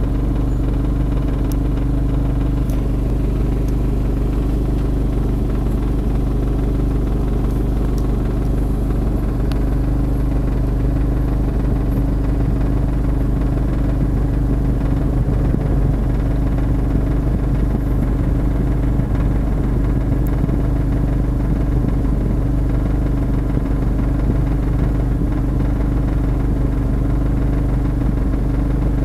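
A vehicle engine idling steadily close by, an even hum that neither revs nor changes for the whole stretch.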